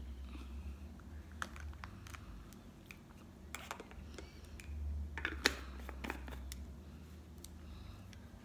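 Makeup items being handled: scattered small clicks and taps as compacts and brushes are set down and picked up, loudest about five seconds in, over a low steady hum.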